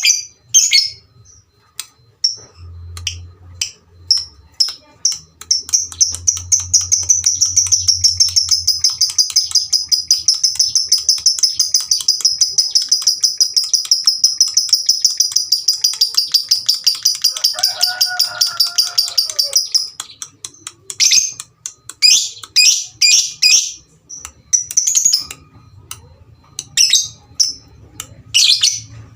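Lovebird singing: scattered sharp chirps, then a long unbroken rapid chattering trill of about fourteen seconds (the drawn-out trill keepers call "ngekek"), then separate chirps again.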